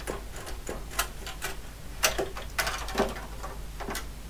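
A PDP-8/M's timing generator circuit card being worked loose and pulled out of its card-cage slot: a string of irregular clicks and knocks as the board comes free.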